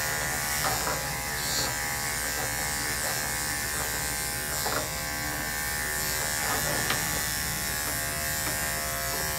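Corded electric dog-grooming clipper running with a steady buzzing hum as it cuts through the dog's fine body hair with a guard comb fitted over the blade.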